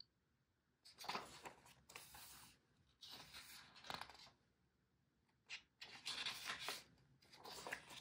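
Pages of a photo book being turned and handled by hand: a handful of soft paper rustles and slides, starting about a second in.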